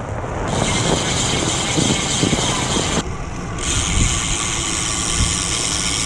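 Rear freehub of a road bike buzzing steadily as the bike coasts, with wind and tyre noise underneath. The buzz drops out for about half a second about three seconds in, then resumes.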